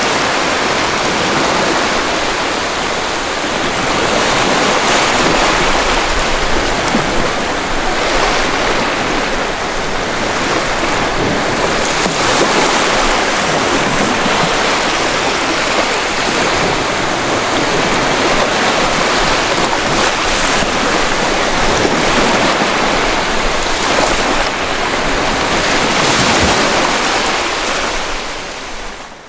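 Sea waves washing and breaking onto the shore in a steady rushing wash, rising and easing gently, fading away sharply at the very end.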